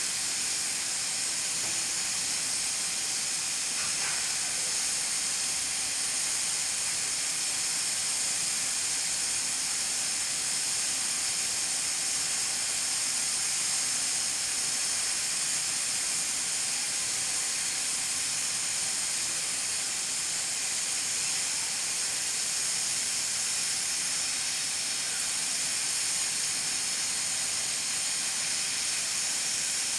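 Pressure cooker hissing steadily as steam escapes past its weight valve, with a faint steady tone underneath; the cooker is up to pressure.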